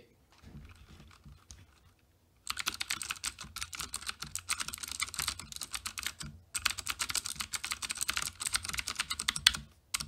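Typing on a Ducky One full-size mechanical keyboard with clicky Cherry MX Blue switches and PBT keycaps: a fast, dense stream of key clicks. The typing starts about two and a half seconds in, pauses briefly around six seconds, then runs on until just before the end.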